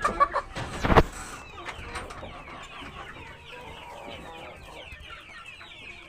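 A flock of chickens clucking and chirping, many short falling calls overlapping. A loud knock comes about a second in.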